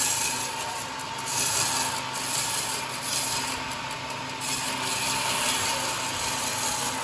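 Homemade band sawmill ripping lengthwise through a long teak slab as it is fed past the blade: a continuous hiss of the blade cutting the wood, with a steady tone from the machine underneath and a few swells in loudness.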